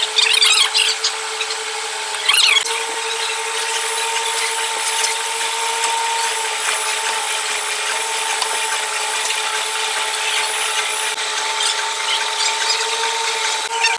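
Machine tool running with a steady whine while cutting an 8 mm keyway in a metal pulley, with short squeals of the cutter on metal in the first three seconds.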